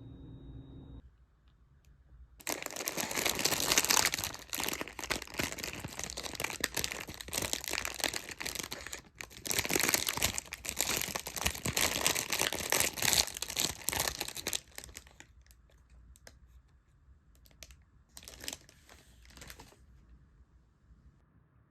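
Crinkling and rustling, in two long stretches broken by a short pause, then a brief burst near the end.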